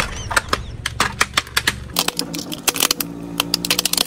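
Plastic toy police jeep cracking and snapping under a car tyre as it is crushed flat, a quick irregular run of sharp clicks and cracks. A low rumble underneath stops about halfway through.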